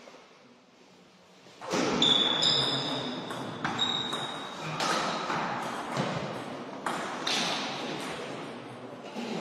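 Table tennis rally: the ball clicking off the rackets and the table in quick, uneven alternation, echoing in a sports hall. It starts about two seconds in, after a quiet moment.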